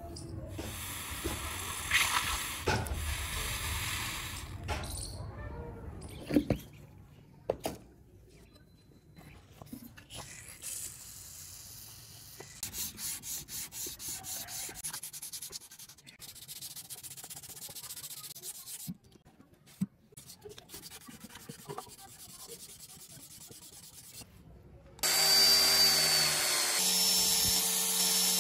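Sandpaper rubbing back and forth on a steel knife blade in hand strokes, at times about four strokes a second. It opens with the hot blade hissing in the quench can. About three seconds before the end, a handheld power tool with a buffing pad starts and runs loud and steady with a whine.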